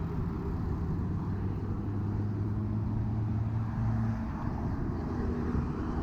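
Wind rushing over the microphone of a handlebar-mounted action camera while cycling, with a steady low hum of road traffic alongside that fades about four seconds in.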